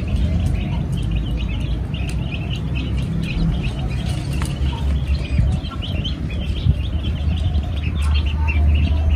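Small birds chirping continuously in short, quick notes, over a steady low rumble.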